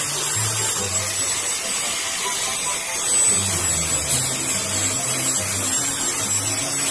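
Electric angle grinder with a sanding disc running steadily, sanding a wooden handle. Background music with a repeating bass line plays along with it.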